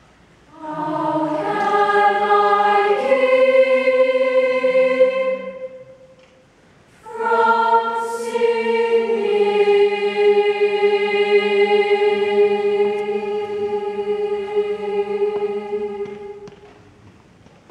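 Children's choir singing: a phrase of about five seconds, a short pause, then a long held final chord that fades away near the end.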